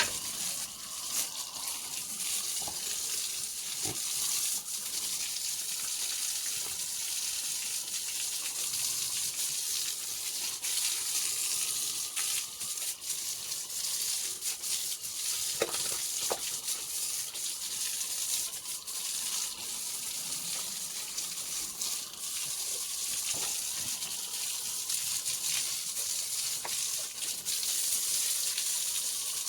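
Steady hissing, crackling noise like running or splashing water, with a few faint knocks.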